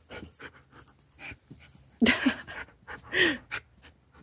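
A husky gives two short whining calls about a second apart, each falling in pitch, during muzzle training. Light clicks and scuffling come before the calls.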